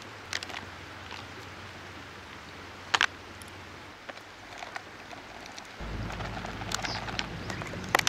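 Steady hiss of a camping gas burner under a small pot of simmering ramen broth, with clicks and clacks of chopsticks and toppings against the pot. The sharpest clack comes about three seconds in. A low rumble sets in about six seconds in.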